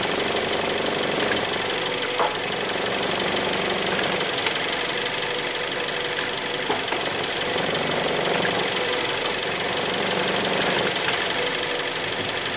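2013 Ford Escape engine running steadily in gear with the vehicle jacked up, as the engine rocks on a worn-out torque mount.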